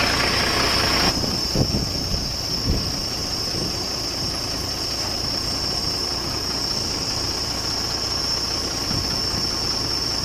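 Engine of the crane truck working the lifting boom, running steadily, with a steady high whine over it and a few short knocks about two seconds in.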